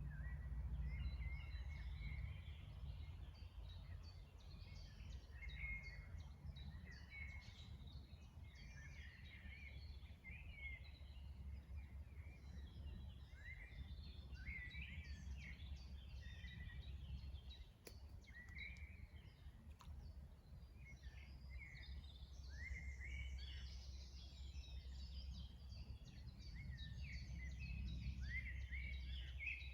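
Several songbirds singing and chirping together in a spring chorus, many short rising notes overlapping, over a faint steady low rumble.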